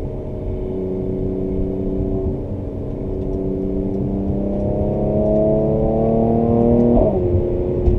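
Mercedes-AMG C43's twin-turbo V6 and performance exhaust, heard from inside the cabin, pulling hard through a gear with the revs climbing steadily. About seven seconds in the pitch drops sharply at an upshift, then the engine pulls on at lower revs.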